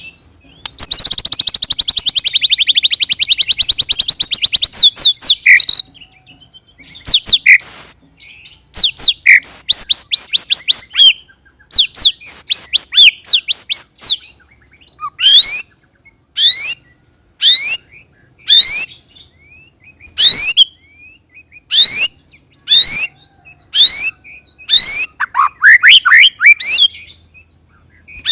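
White-rumped shama (murai batu) song. It opens with a fast rolling trill lasting about five seconds, then breaks into separate clear whistled phrases. From about halfway it becomes a run of sharp rising 'shot' notes, roughly one a second.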